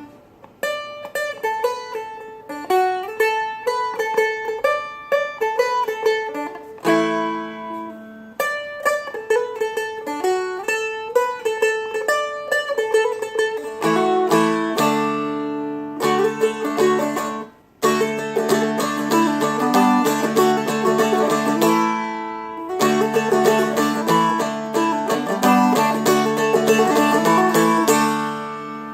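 Seagull Merlin, a four-string fretted diatonic instrument, flatpicked through a lively Celtic jig melody over ringing drone strings, with a brief break about seventeen seconds in.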